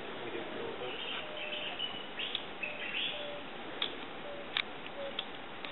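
Wild birds calling: short high chirping phrases in the first half, then a low short note repeated steadily about every half second to second, with a few sharp ticks in between.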